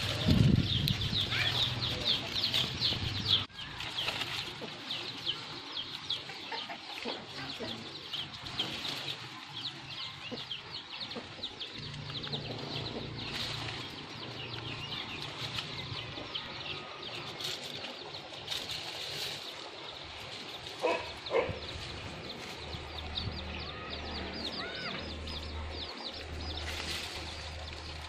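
Small birds chirping continuously: many short, high chirps in quick succession, densest in the first half. A brief lower call stands out about two-thirds of the way through.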